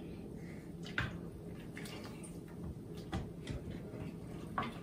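A spoon stirring through thick pepperpot stew in an Instant Pot's stainless steel inner pot: soft wet liquid sounds, with light taps of the spoon against the pot about one, three and four and a half seconds in.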